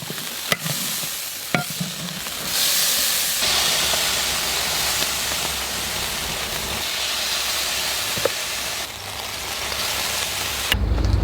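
Chicken feet and pickled mustard greens sizzling in a wok as the sauce reduces over medium heat, with a spatula clicking against the wok now and then. A brief low rumble near the end.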